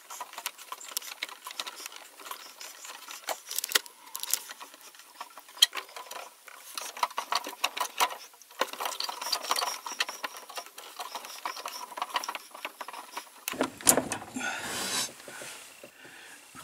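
Scattered clicks, taps and rattles of a small tubing cutter and copper pipe fittings being handled. A denser burst of rustling and knocking comes near the end.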